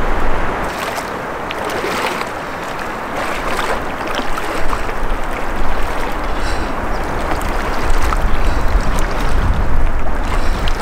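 Strong wind gusting against the microphone: a heavy, steady rush of noise with a low rumble, swelling and easing a little over the seconds.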